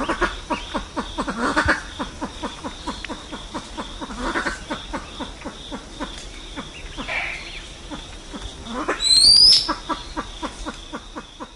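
Silver pheasant flock call: a rapid, even run of low clucks, about six a second, with a loud, shrill call rising in pitch about nine seconds in.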